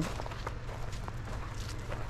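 Faint footsteps and scattered light clicks over a steady low hum.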